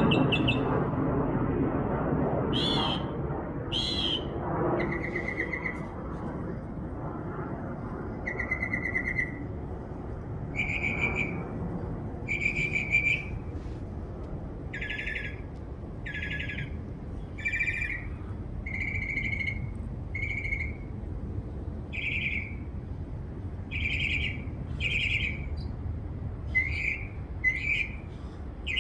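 A bird giving a long series of short calls, one every second or two, with the shape of the call changing from one to the next: some are rising or falling notes, some are buzzy chirps, some are steady whistled notes. The calls sit over a low background rumble that is strongest in the first few seconds.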